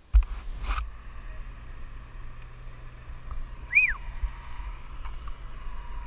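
Uneven low rumbling of wind on the microphone high up in a tree, under a faint steady hum, with a single short chirp that rises and falls about four seconds in.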